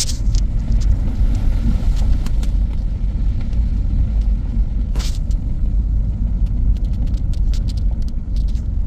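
Vehicle driving: a steady low road rumble with scattered light clicks and ticks, one sharper click about five seconds in.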